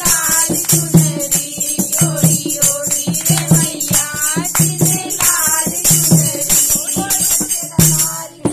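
Women's voices singing a Hindi devotional bhajan to the Mother Goddess, over a steady rhythmic beat with jingling percussion. The singing and beat break off near the very end.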